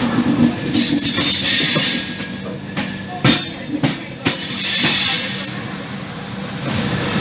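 Passenger express train's wheels squealing on the rails with a high, thin screech over the running noise. A handful of sharp clacks from the wheels on the track come about three to four seconds in.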